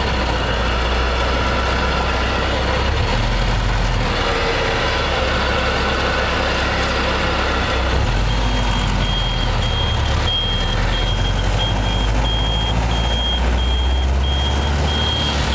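Car engine, a C3 Corvette's V8, running under way in low gear as heard from inside the cabin, its note stepping at about 3 and 8 seconds in. From about 8 seconds in, a high-pitched beep repeats about twice a second.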